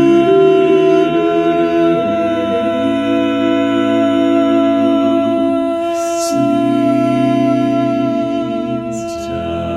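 Men's voices singing a cappella in barbershop harmony, holding the word "sleep" as slow sustained chords that shift twice under one high note held steady throughout.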